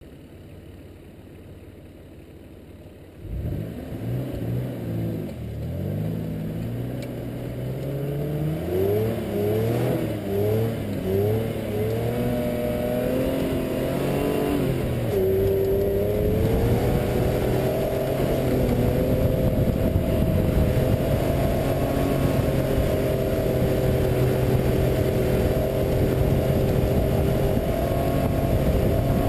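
Mitsubishi Pajero V6 engine heard from a bonnet-mounted camera. It comes in sharply about three seconds in and revs up and down several times in quick succession, then runs steadily under load as the 4x4 drives through snow.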